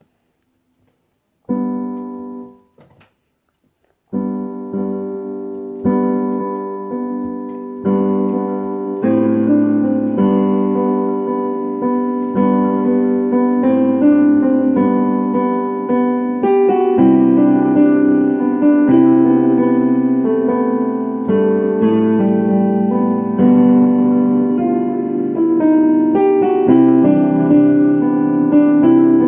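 Piano playing a simple waltz the player made up herself. A single chord sounds about a second and a half in and dies away. From about four seconds in, the playing runs on steadily with changing chords.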